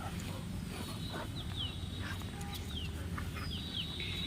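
Faint bird chirps: short cheeps that fall in pitch, repeated irregularly, over a steady low background rumble.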